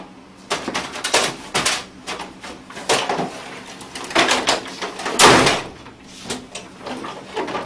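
Plastic rattling and clunking of a jammed office printer's housing and loose parts as it is yanked, lifted and tilted by hand, in several separate bursts. The loudest clatter comes a little past five seconds in, as the printer is set back down on the wooden table.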